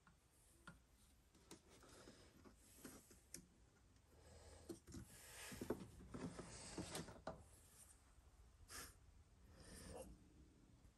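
Near silence with faint handling sounds: soft clicks and rubs as a plastic oil jug and a syringe are picked up and handled, busiest around the middle.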